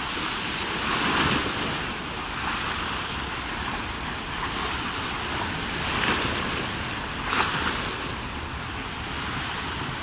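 Small sea waves breaking and washing over a rocky, stony shallow shore: a steady wash with surges as waves come in, about a second in and again around six and seven seconds in.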